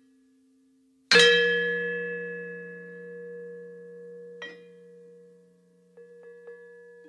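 A struck bell-like chime rings out loudly about a second in, holding several steady tones as it slowly fades. A lighter strike follows about three seconds later, then soft taps near the end.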